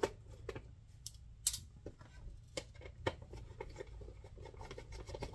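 Light, irregular clicks and scratches of a precision screwdriver backing out the small screws that hold the NIBP pump module inside a Dash 3000 patient monitor, with the module's plastic and metal parts being handled.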